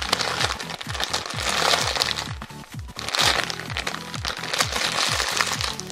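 Background music with a steady beat of short falling bass notes. Three bursts of soft rustling noise come over it, plausibly a jumbo polyurethane-foam squishy being squeezed.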